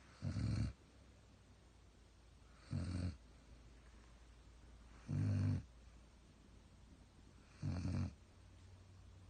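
German Shepherd snoring in its sleep: four short snores, about two and a half seconds apart.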